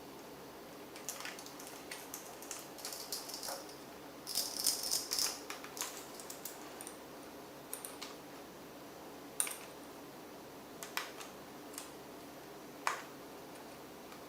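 Small clicks and rattling from handling laptop parts by hand. A denser rattle comes about four to five seconds in, then a few scattered single sharp clicks.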